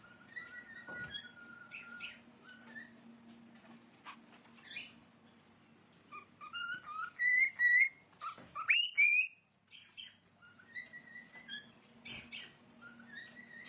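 Pet parrot whistling and chirping in short whistled notes, with a louder run of whistles about six to nine seconds in that ends in a rising whistle.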